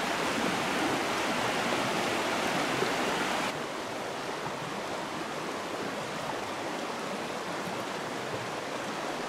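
Rushing water of a small creek running over riffles and rapids, a steady hiss. It drops suddenly to a softer, duller rush about three and a half seconds in.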